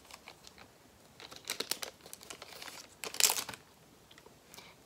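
Plastic blind-bag packaging crinkling as it is handled, in two short spells, the louder one about three seconds in.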